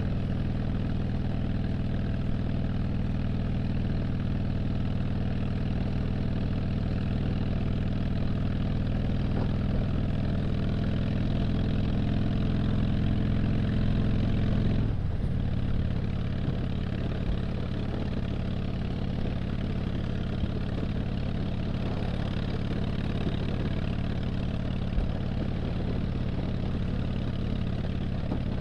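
A 2007 Harley-Davidson Dyna Street Bob's V-twin engine runs steadily at cruising speed, with wind rush on the helmet microphone. About halfway through, the revs drop abruptly and the engine settles into a lower, steady note.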